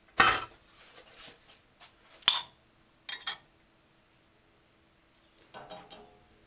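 A metal cooking spoon and fork clinking and knocking against a ceramic bowl, a few separate sharp clinks with the loudest near the start and another about two seconds in, then lighter clatter near the end.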